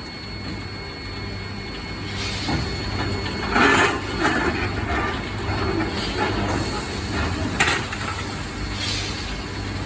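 Factory machinery running with a steady low hum, broken by a few short hissing bursts and metal knocks; the loudest burst comes a little past three and a half seconds in, and a sharp knock comes near eight seconds.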